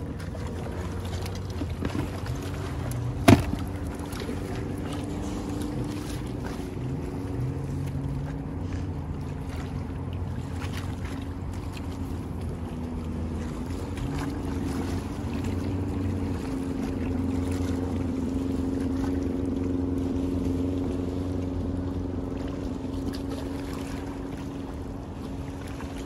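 A motorboat engine running steadily on the river, swelling slowly to its loudest about three-quarters of the way through and then easing off as it passes. A single sharp click about three seconds in.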